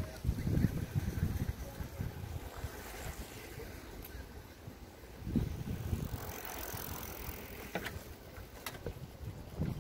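Wind rumbling on the microphone while riding a bicycle, in gusts near the start and again about five seconds in, with a few light clicks near the end.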